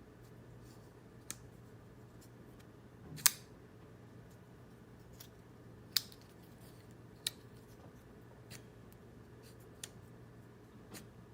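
CIVIVI Elementum flipper pocket knife being flicked open and shut, its blade giving sharp metallic clicks about seven times, a second or two apart, the loudest about three seconds in.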